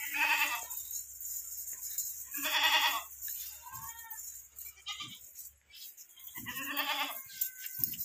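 Young Beetal goat kids bleating: three loud bleats, one at the start, one a few seconds in and one near the end, with a few fainter calls between.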